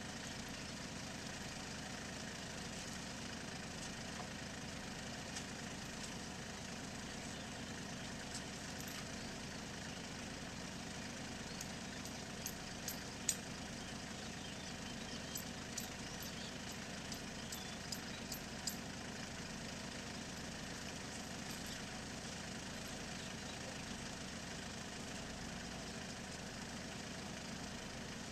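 Tractor engine idling steadily, with a run of light, sharp ticks near the middle.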